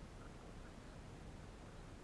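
Faint, steady background hiss with no distinct sounds.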